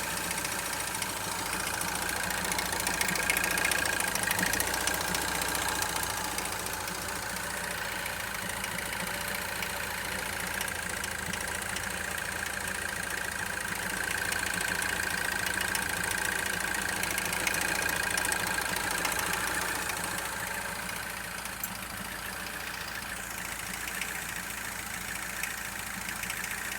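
An engine running at idle, with a whine that swells louder twice, a few seconds in and again in the middle, then settles quieter near the end.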